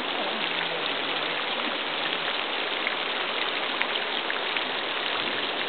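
Heavy rain falling steadily, a dense even hiss with scattered sharp ticks of individual drops.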